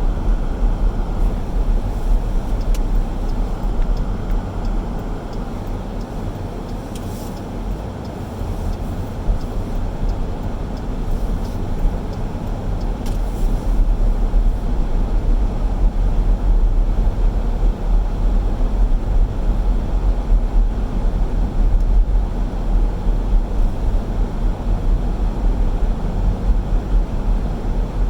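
A car driving, with a steady low rumble of engine and tyres on the road. It eases off a little about six to eight seconds in, then builds again.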